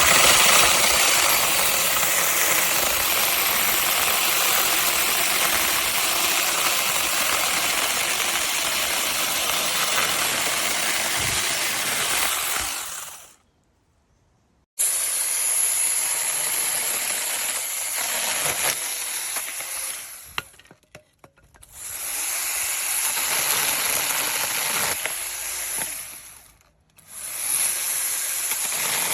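Angseen 6-inch battery mini chainsaw with a brushless motor, running with its chain cutting through wood. It runs steadily for about thirteen seconds and cuts off abruptly. It starts again with a steady high whine, and twice spins down and back up as the trigger is released and pressed.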